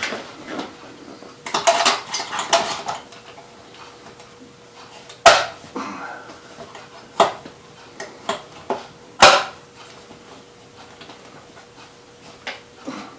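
Hard parts clinking and knocking as they are handled: a quick rattling clatter about two seconds in, then several sharp single knocks spaced a second or two apart in the middle.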